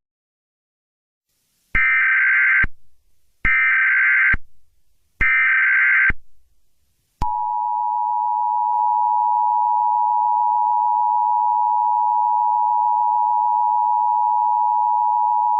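Emergency Alert System tones: three short bursts of buzzing SAME digital header data, each under a second long, then about seven seconds in the steady, harsh two-tone EAS attention signal, held for about eight seconds. Together they mark the start of a new emergency alert broadcast.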